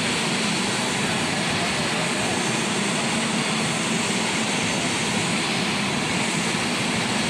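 Fighter jet engine running with a steady, unbroken roar.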